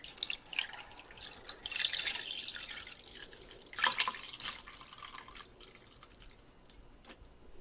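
Chicken cooking liquid poured from a pot through a fine-mesh stainless steel strainer into a bowl, splashing and trickling. Stronger gushes come about 2 and 4 seconds in, then the pour thins to a trickle, with a light tap near the end.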